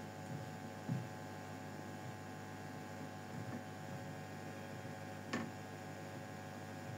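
Steady low electrical hum from a switched-on guitar amplifier with an electric guitar plugged in, sitting idle, with a soft thump about a second in and a short click about five seconds in.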